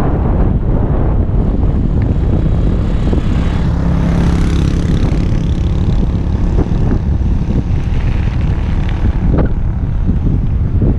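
Wind buffeting the microphone of a camera on a moving bicycle: a loud, steady rumbling rush. A low steady hum joins it for a couple of seconds a few seconds in.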